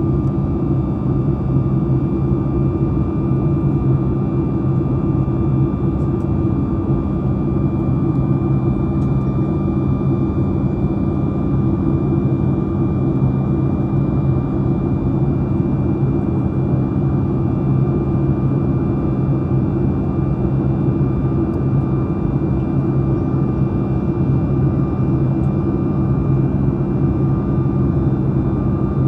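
Steady cabin noise inside a Boeing 737 MAX 9 airliner with its CFM LEAP-1B engines running evenly. A loud low hum carries a few steady tones above it, with no change in pitch or level.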